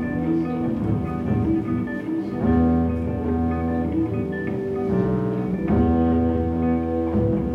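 Live band music: two electric guitars playing long, ringing notes and chords over a low bass line.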